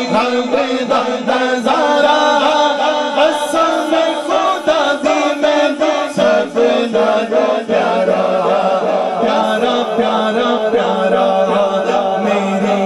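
Male voices reciting an unaccompanied Punjabi naat into microphones. A lead voice sings melodic lines over a steady low held drone, and the drone shifts lower about halfway through.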